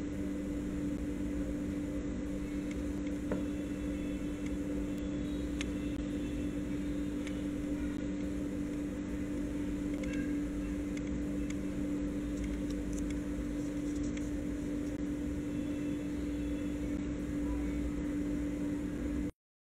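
Steady hum and hiss with a low droning tone, no voices or crowd audible, cutting off suddenly near the end.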